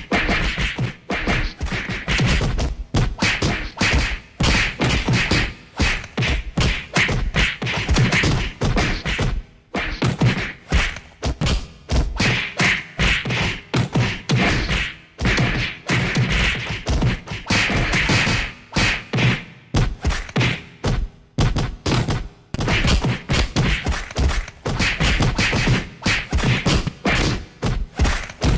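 Rapid, continuous string of synthetic punch, kick and body-hit sound effects: dense thuds and whacks, several per second, with brief gaps of a fraction of a second.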